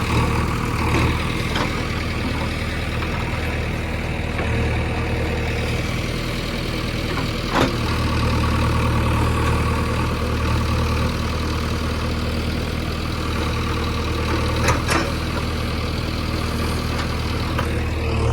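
Bulldozer's heavy diesel engine running steadily while levelling soil, with a few sharp knocks, the clearest a little before halfway and another late on.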